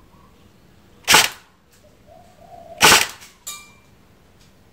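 Golden Eagle Type 96 electric airsoft light machine gun firing two short bursts about two seconds apart. The gun has full-auto only, so each brief trigger pull lets out a quick burst rather than a single shot.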